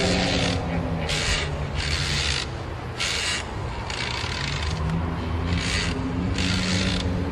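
Horror sound effect: a series of rasping, scraping strokes, roughly one a second, over a low droning hum.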